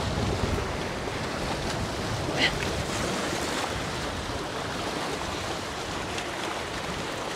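Wind-driven lake waves splashing against shoreline boulders, with strong wind buffeting the microphone. A single short click about two and a half seconds in.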